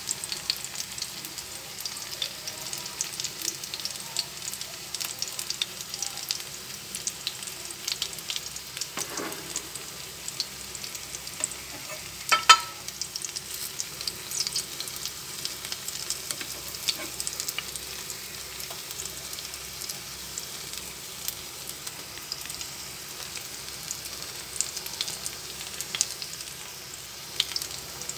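Minced shrimp and scallion patties shallow-frying in hot oil in a pan: a steady sizzle with scattered crackling pops of spattering oil. There is one sharp knock near the middle.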